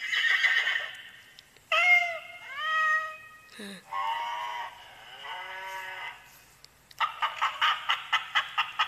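A children's farm sound book playing recorded farm-animal sounds one after another through its small speaker: a series of separate animal calls, some falling in pitch. Near the end comes a fast, evenly repeated pulsing sound.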